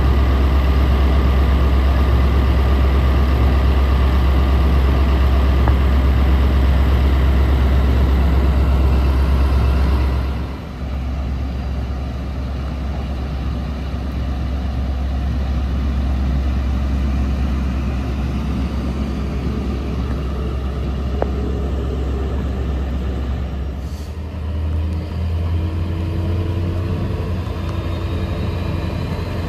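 A diesel locomotive idles close by with a deep, steady drone. After a cut, class 73 No. 73970 leads class 66 No. 66309 slowly into the station under power, and the engine note rises near the end.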